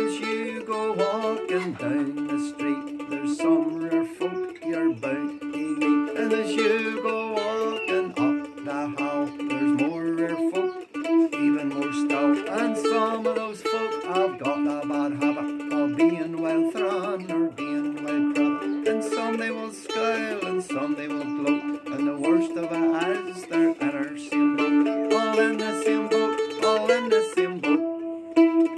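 Teardrop-bodied mandolin played in a steady, lilting folk tune, its chords and melody notes changing throughout. A man's voice sings along in places.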